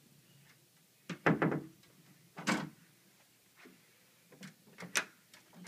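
Interior door being worked by a toddler, its brass lever handle and latch clicking and the door knocking. It makes a series of knocks and clicks, the loudest cluster about a second in, then single knocks spaced out over the next few seconds.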